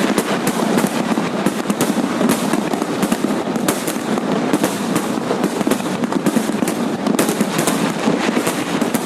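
Fireworks going off in rapid, continuous succession: a dense crackle of many overlapping bangs with no pause between them.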